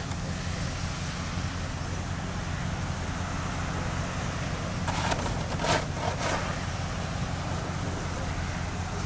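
Steady low vehicle engine and road rumble, with a few brief scraping or crunching strokes about five to six seconds in.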